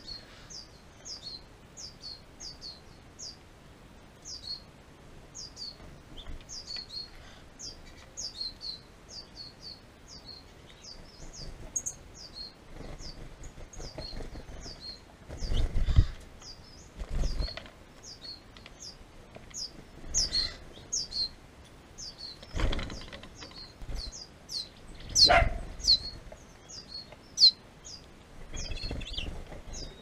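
A small bird repeating a short, high, falling chip about twice a second, with wing flutters and low knocks from about halfway through as birds land on and leave a tube seed feeder.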